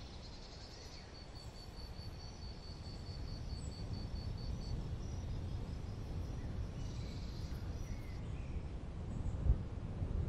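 Forest ambience: a steady low rumble with a run of high, evenly spaced chirps, about four a second, for the first few seconds, from a small bird or insect. A brief chirping flurry follows later, and there is a short low thump near the end.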